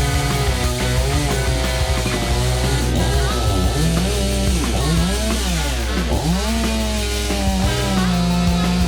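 Background rock music with electric guitar, with a chainsaw running underneath.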